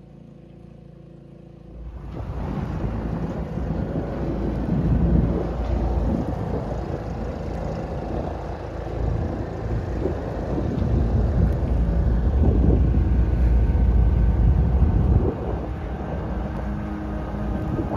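Wind buffeting the microphone and water rushing along the hull of a small sailboat under way in choppy water. It jumps up sharply about two seconds in and stays loud and uneven.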